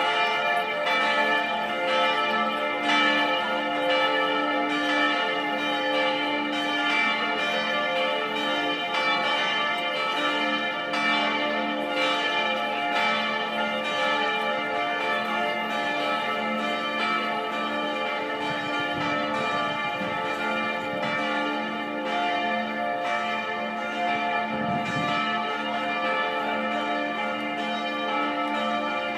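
Several large church bells pealing together, strikes overlapping so that the tones of the bells hum on without a break.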